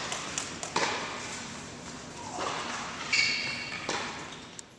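Tennis ball struck by rackets and bouncing on an indoor hard court, the sharp hits echoing around the hall. A brief high squeak comes about three seconds in, and the sound fades out at the very end.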